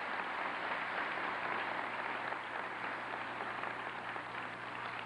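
Audience applauding: steady, dense clapping that eases slightly toward the end.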